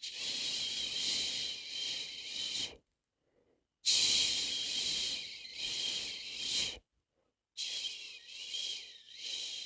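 A person shushing a baby to sleep with long 'shhh' sounds, three drawn-out shushes of about three seconds each. Each one swells and eases a little, and there are short silent pauses for breath between them.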